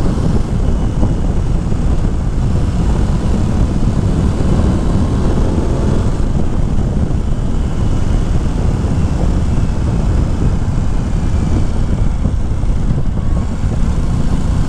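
Aprilia Tuono 660's parallel-twin engine running while the bike is ridden, under a steady rush of wind noise.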